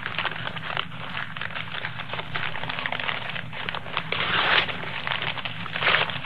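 Gift wrapping paper crinkling and tearing as a present is unwrapped: a dense run of crackles, heaviest about four seconds in and again near the end.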